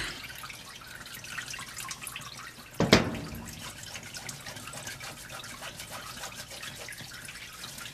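Soapy water sloshing and dripping in a plastic tub as a doll's cloth arm is scrubbed by hand, with one louder thump about three seconds in.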